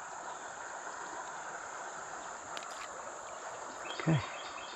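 Steady rush of flowing river water, with a constant thin high-pitched hiss above it.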